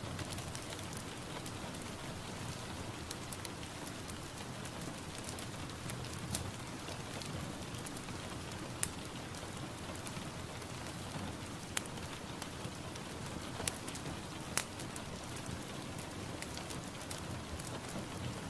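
Steady rain falling on a surface, with many scattered sharp drip ticks and a few louder drops standing out.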